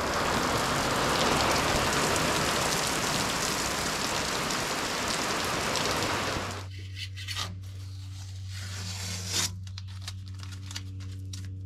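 Heavy rain pouring down on pavement and a vehicle, a loud, even hiss that cuts off about six and a half seconds in. After that comes a quieter stretch with a steady low hum and a few light clicks and rustles.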